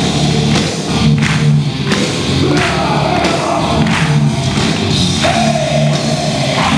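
Loud music with singing and a steady beat, played over a hall's sound system.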